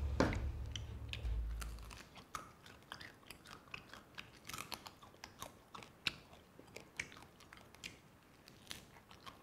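Close-up chewing and gnawing on roast duck, with a scatter of short crunches and clicks as skin and meat are bitten off the bones. A low steady sound dies away about two seconds in.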